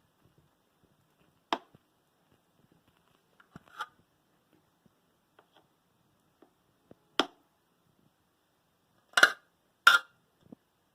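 A kitchen utensil knocking and clinking against a pan or dish several times while coconut filling is spooned over a cake, with the two loudest knocks close together near the end.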